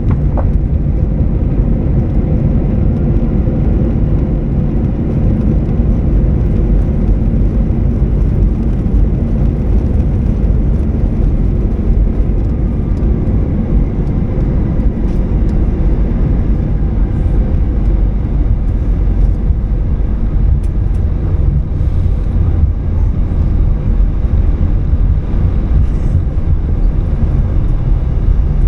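Airbus A320 cabin noise heard from inside the cabin: a steady low rumble of engines and airflow with a faint steady hum.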